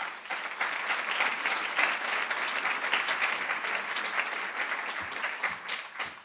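Audience applauding steadily, a dense patter of many hands clapping that dies away near the end, with a couple of dull thumps as it fades.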